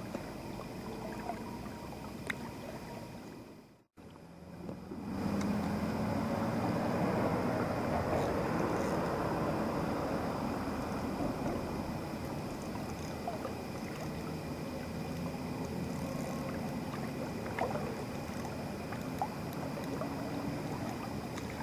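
Steady rush of flowing river water, cutting out briefly about four seconds in, then louder, with a few faint ticks.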